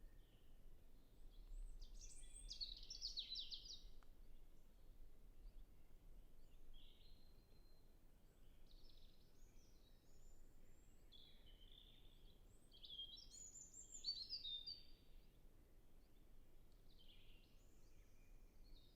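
European robin singing: faint, high, warbling phrases of varied notes, each a second or two long, with pauses between them. The strongest phrases come about two to three seconds in and again about thirteen seconds in.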